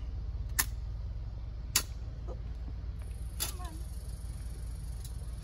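A handful of sharp metallic clicks, about four spread a second or so apart, as a folding camp-stove toaster is opened and its metal parts snap into place, over a steady low rumble.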